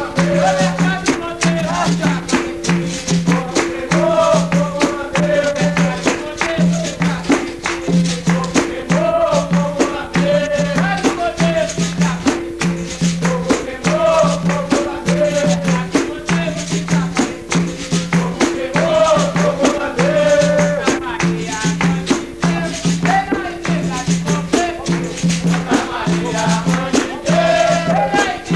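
Capoeira roda music: berimbaus with caxixi rattles, an atabaque drum and pandeiros playing a steady repeating rhythm, with a voice singing over it.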